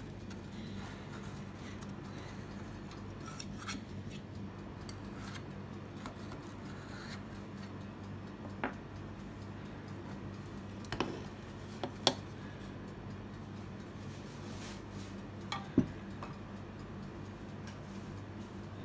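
Metal loaf tin handled against a glass tray as a cake is loosened and turned out: faint scrapes, then several sharp clinks and taps in the middle of the stretch, over a low steady hum.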